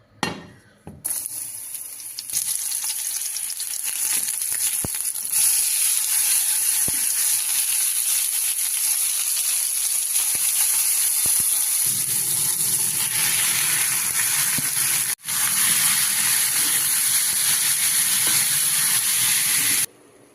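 Squid sizzling in a hot frying pan, a loud steady hiss that starts abruptly about a second in, breaks off for an instant near fifteen seconds and stops suddenly near the end.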